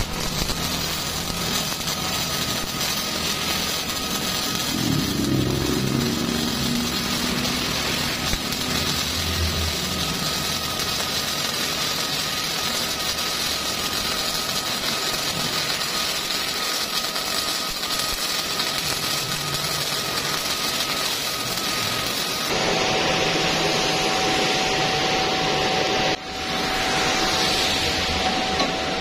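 MIG welding arc from a Stahlwerk InMIX-6LV welder, set to roughly 86–100 A and 17.5–17.8 V, sizzling steadily while a bead is laid. About three-quarters of the way through the sound changes abruptly to a different steady noise with a thin steady tone, with a brief drop-out near the end.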